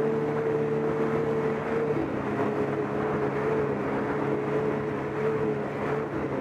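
Snowmobile engine running at steady trail speed, a sustained drone that drops slightly in pitch about two seconds in and then holds.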